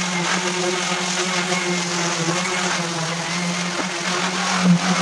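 Electric sander running against the pine rails of a wooden bed frame: a steady motor hum with the hiss of sandpaper on wood.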